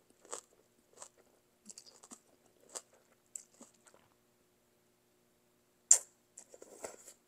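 Close-up eating sounds of a person slurping and chewing bún bò Huế noodles: scattered wet mouth clicks and short slurps, with one sharp, loud click about six seconds in.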